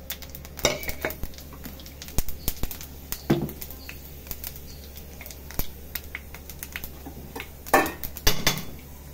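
Scattered light clicks and clinks of utensils against a nonstick pan, with fennel and fenugreek seeds crackling in hot oil, over a steady low hum. A few louder clatters come about a second in, around three and a half seconds in, and near the end.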